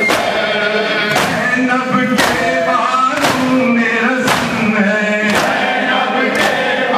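Crowd of men chanting a Shia mourning lament (noha) in unison, with rhythmic matam: open hands slapping chests together, about one loud slap a second.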